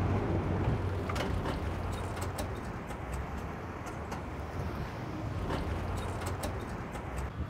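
City street traffic: the steady rumble of cars and vans driving past, with some wind on the microphone and a few light clicks.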